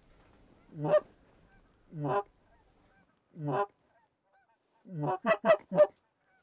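Geese honking in flight: three single honks spaced a second or so apart, then a quick run of four honks near the end.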